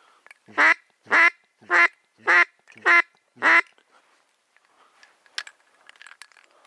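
Duck quacking: six loud quacks in a row, about one every 0.6 s, then stopping.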